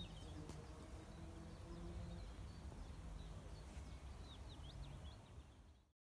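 Quiet reed-bed ambience: small birds singing in short, high chirping phrases, clearest about four seconds in, over a low steady rumble. The sound fades out just before the end.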